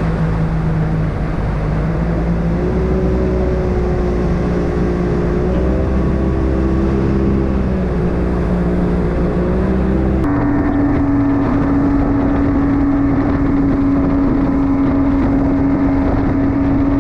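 Outboard motor of a small boat running under way at steady speed, its engine note wavering slightly. About ten seconds in it switches abruptly to a steadier, slightly different engine note.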